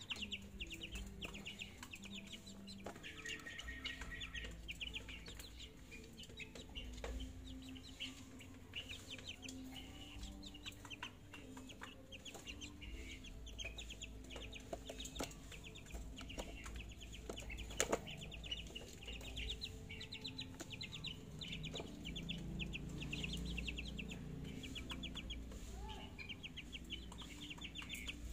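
One-month-old chicks calling in runs of short, rapid high peeps, with a single sharp knock about eighteen seconds in.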